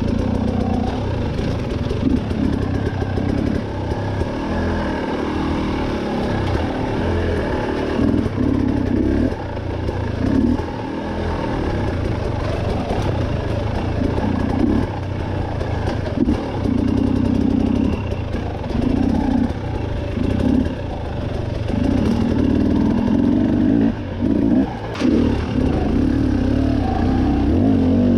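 Husqvarna enduro dirt bike engine, fitted with an FMF exhaust, pulling along a trail. The throttle is opened and closed in repeated short bursts, so the engine note keeps rising and dropping, with a couple of brief sharp drops near the end.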